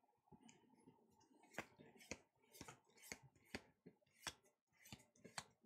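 Faint clicks from Pokémon trading cards being flipped one by one through a hand-held stack, each card sliding off the next with a light snap, about two a second.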